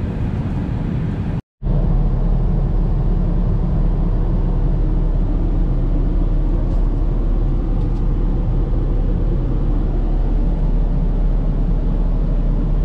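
Airbus A380 cabin noise in cruise: a steady rush of air over a low rumble. It breaks off briefly about a second and a half in, then returns with a stronger, deeper hum in the lavatory.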